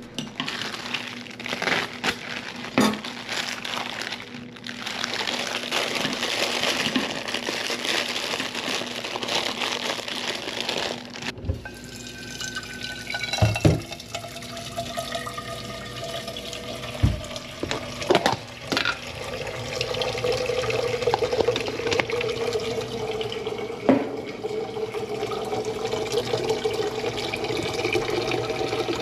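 Water running from a kitchen tap and splashing, with several sharp knocks. In the second half the splashing gains pitched ringing tones, like a container filling.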